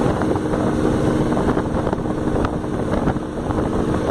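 Dune buggy engine running steadily under way across the sand, heard from on board, with wind buffeting the microphone.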